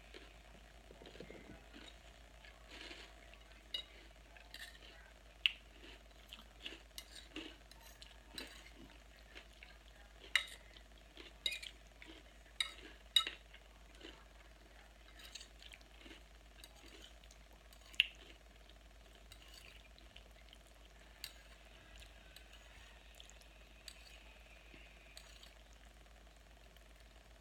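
Someone eating a crunchy salad with croutons: irregular crisp crunches and clicks of chewing, with forkfuls against the dish, busiest through the middle stretch and sparse near the end. A faint steady hum sits underneath.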